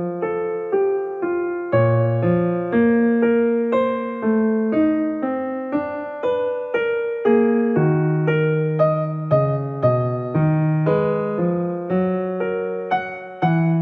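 Background piano music: single notes and chords struck at an even pace of about two a second.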